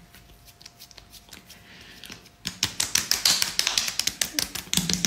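Palms patting the face in rapid light slaps, pressing toner into the skin. The pats start about halfway through; before that only a few faint taps.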